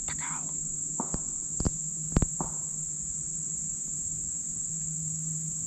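Insects droning steadily in a high, even buzz, with three sharp cracks of distant pistol fire between about one and two seconds in, the last the loudest.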